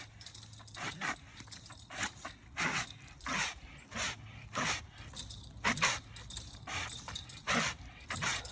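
An American bully dog breathing hard in sharp, noisy huffs, about one a second, while straining at a physical effort.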